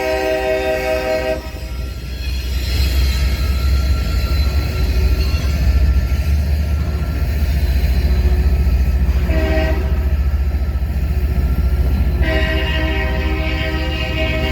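Locomotive multi-chime air horn sounding over the steady low rumble of a train: one blast cuts off about a second in, a short blast comes near the middle, and a long blast starts near the end.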